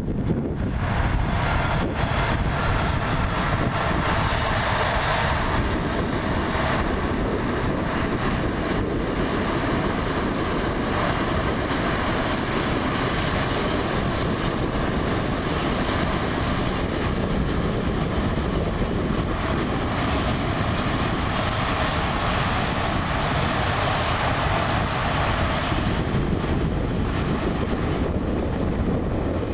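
A train rolling past on the line, a steady rush of wheel and rail noise that sets in about a second in and eases near the end, with wind buffeting the microphone.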